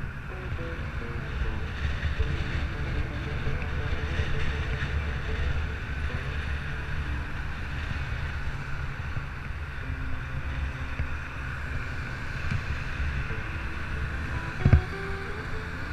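Wind buffeting an action camera's microphone while cycling along a city street, a steady low rumble with road and traffic noise under it. A single sharp thump near the end.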